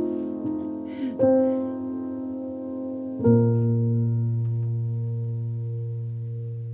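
Background piano music: slow chords, the last struck about three seconds in and left to ring and slowly fade.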